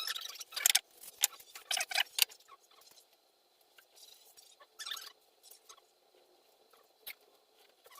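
Pencil scratching on wood in short, irregular strokes as a face design is drawn out, busiest in the first two seconds and sparser after.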